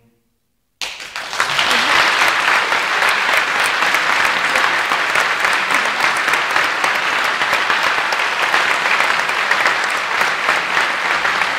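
Audience applauding, breaking in suddenly about a second in and holding steady.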